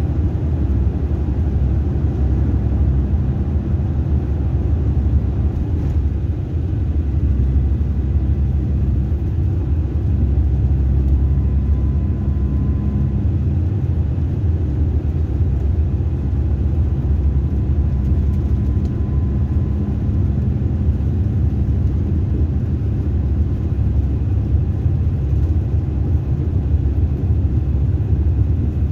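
Mercedes-Benz bus running, heard from inside the passenger cabin: a steady low rumble that does not let up.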